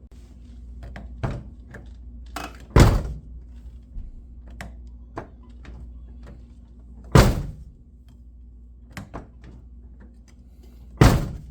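Nissan 350Z car door shut three times, about four seconds apart, with lighter clicks of the handle and latch between the shuts. This is the door being opened with a newly fitted aftermarket carbon fiber door handle and closed again to test it.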